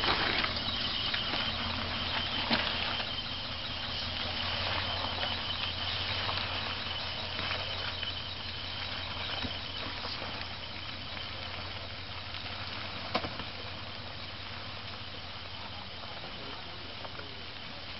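Mitsubishi Pajero SUV's engine running at low revs as it crawls through mud, growing fainter as it pulls away. A steady hiss and rustle sits over it, with a couple of sharp clicks.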